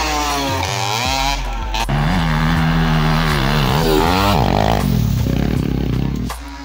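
Small dirt bike engine revving hard, its pitch sweeping up and falling back several times as the throttle is worked through the jumps.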